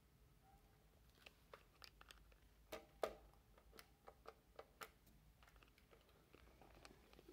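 Faint clicks of intercom keypad buttons being pressed, about a dozen irregular taps. The loudest come about three seconds in, with fainter ticks after that.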